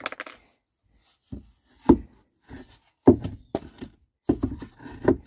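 Wooden boards knocked and set down against one another on a stack: a series of sharp wooden thunks, the loudest about two seconds in, then five or so more close together in the second half.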